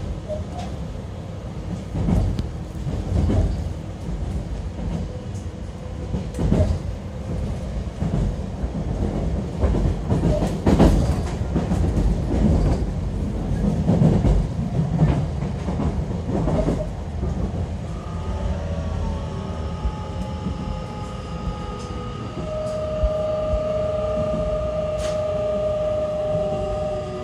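Running noise inside a JR Kyushu 813 series electric multiple unit's motor car: a steady low rumble with irregular wheel clicks over rail joints. About two thirds of the way through, the traction motors' whine comes in as several tones falling in pitch as the train brakes for its stop.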